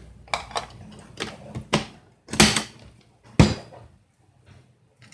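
Coffee beans and a spoon knocking into the chamber of an electric blade coffee grinder as it is loaded: a few light clicks, then two loud knocks about halfway through. The grinder motor is not running.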